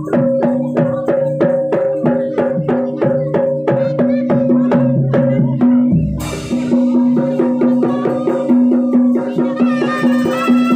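Javanese jaranan music: a fast, even beat of struck percussion, about three strikes a second, over a steady held pitch, with a deep thump about six seconds in and a sustained melody instrument coming in near the end.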